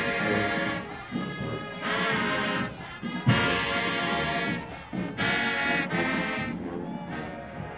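Marching band brass section playing held chords in phrases of a second or two with short breaks between, and a heavy bass drum hit about three seconds in.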